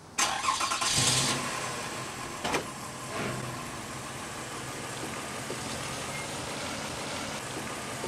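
Minivan engine starting, then settling into a steady idle, with a sharp knock about two and a half seconds in.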